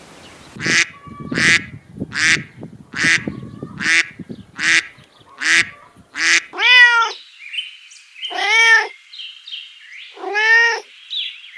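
Animal calls: seven short, high cries in quick succession, then three longer meow-like calls that rise and fall in pitch, spaced about two seconds apart.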